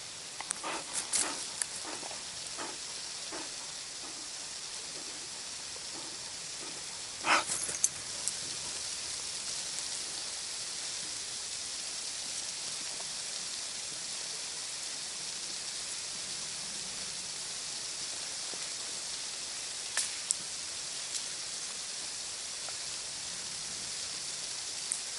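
Steady, high-pitched hissing rush of falling water. A series of short knocks and clicks comes in the first few seconds, a louder knock about seven seconds in, and a couple more around twenty seconds.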